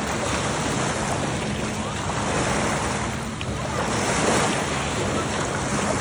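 Small lake waves lapping and splashing in shallow water at the shoreline, with wind rumbling on the microphone.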